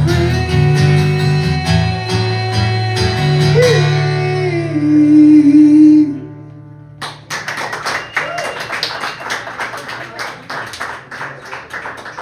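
A man singing and strumming an acoustic guitar, holding the final sung note of a folk-rock song until the music stops about six seconds in. After a short pause, an audience applauds with a few cheers.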